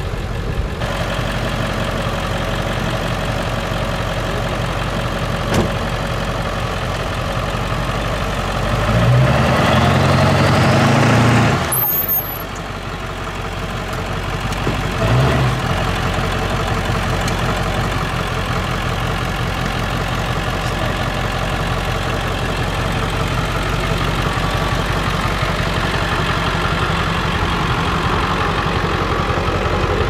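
Heavy-duty pickup truck's engine idling steadily. It revs up for a few seconds about nine seconds in as the truck pulls onto leveling blocks, drops off sharply, and revs briefly once more just after fifteen seconds before settling back to idle.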